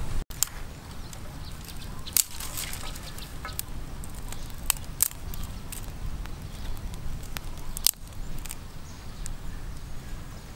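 Irregular sharp snaps and crackles of dry twigs and leaves from a small open fire of dry grass and twigs and from dry twigs being handled beside it, with louder snaps about two, five and eight seconds in. A low rumble of wind on the microphone runs underneath.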